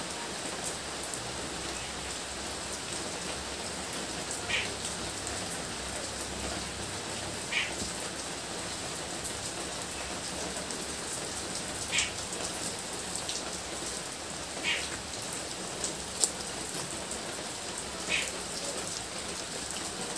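Steady rain falling, an even hiss throughout, with a few short faint clicks every few seconds and one sharper click near the end.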